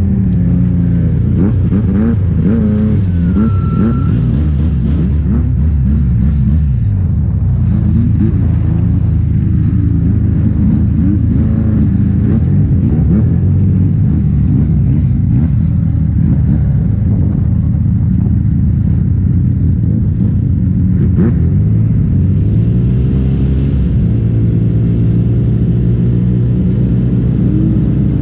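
Snowmobile engines, the nearest the rider's own Arctic Cat, running at low speed and being revved. Several engines are heard at once, their pitch rising and falling with the throttle over a steady low rumble.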